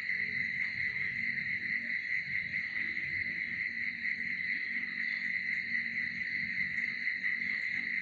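Steady chorus of night insects chirring, an unbroken high shrill drone that does not change.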